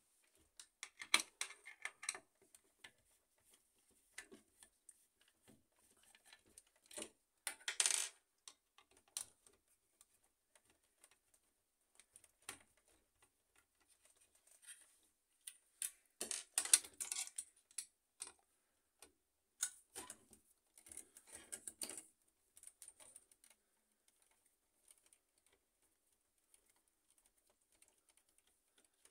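Screwdriver turning out small screws from the sheet-metal frame of an HP LaserJet M607 fuser assembly: scattered light clicks and small metallic clinks, coming in several short bursts.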